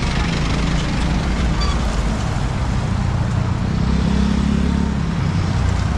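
Road traffic: motorcycles and cars passing at close range, engines and tyres running steadily. One passing vehicle grows louder from about three and a half seconds in and then fades.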